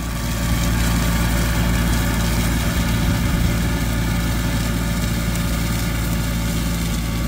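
Compact tractor running under load with its PTO-driven hammer mulcher cutting grass: a steady engine hum beneath a broad, even rushing noise from the mulcher.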